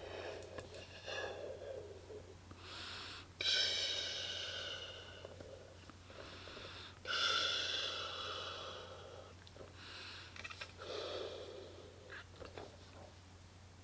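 A person inflating a vinyl bop ball by mouth: quick breaths in, and two long blows into the valve tube about 3.5 and 7 seconds in, each with a whistling rush of air.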